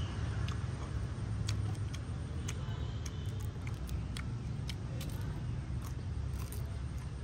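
Short, irregular crisp clicks and crackles of fried tarantulas being pulled apart and handled over a metal tray, over a steady low rumble.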